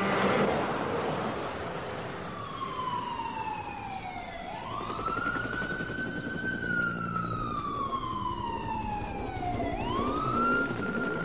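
A siren wailing in slow cycles over street-traffic noise: it slides slowly down in pitch, jumps quickly back up, and does so twice.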